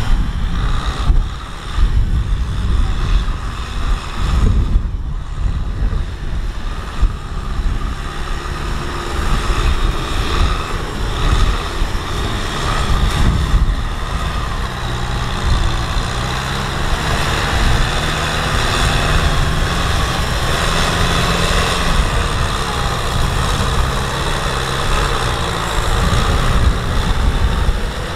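Kubota M6040SU tractor's diesel engine running steadily under load as the tractor drives through deep mud, with wind buffeting the microphone.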